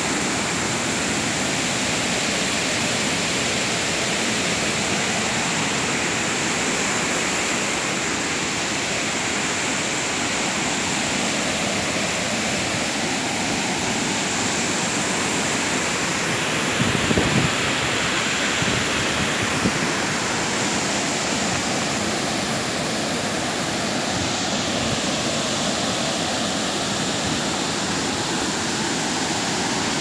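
Steady rush of a waterfall, its water pouring over rock cascades. There is a brief low bump a little past halfway.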